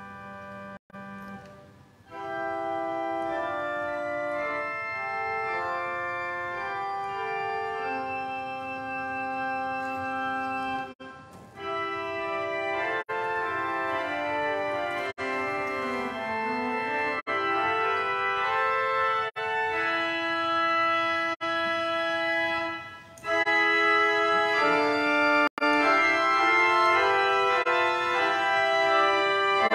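Church organ playing a solo passage of sustained chords, the notes moving stepwise. The sound cuts out for an instant several times, dropouts from a faulty recording device.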